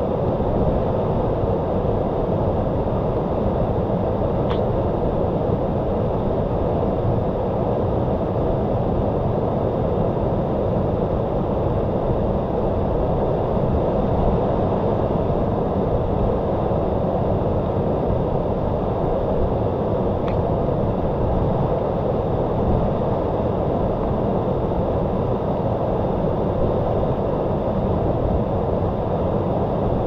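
Waterfall: a steady, unbroken rush of falling water, heaviest in the low and middle range.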